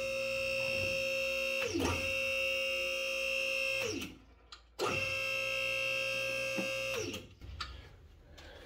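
Electric hydraulic pump motor of a two-post car lift whining steadily as it raises the car. It runs in two spells, about four seconds and then about two seconds, and its pitch drops away each time it stops.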